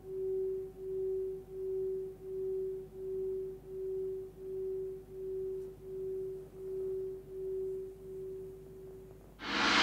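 Forged Sun Moon singing bowl, 13.8 cm, ringing on its 380 Hz F# note as the tone slowly dies away, with a steady wobble of about two pulses a second. Near the end a hand stops the bowl and the ring cuts off, and just before the end a loud gong stroke starts.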